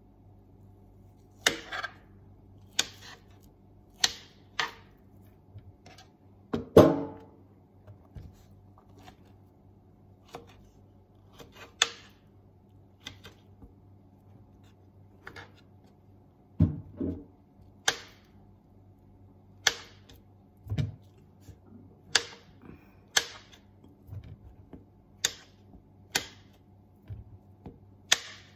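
Kitchen knife chopping through a peeled potato onto a wooden cutting board: irregular sharp taps about once a second or so, with one heavier thump about seven seconds in.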